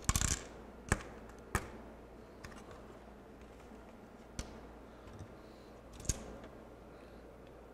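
Sharp small clicks and a brief rattle from hands handling the parts inside an opened cassette boombox during disassembly: a short burst of clicking at the start, then single clicks about a second in, at a second and a half, and twice more later.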